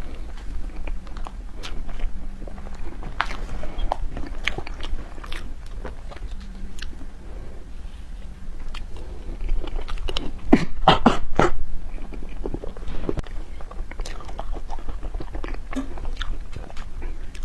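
Close-up chewing and biting of snow-skin mochi desserts, with wet mouth clicks and smacks. A run of louder bites comes about ten seconds in.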